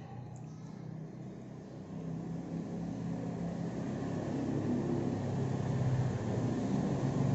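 A motor vehicle's engine, a low steady hum growing steadily louder as it approaches.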